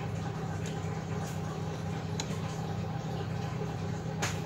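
Small bench vise being tightened by its sliding metal handle: a few light ticks, then one sharp metallic click near the end. Under it runs a steady low hum.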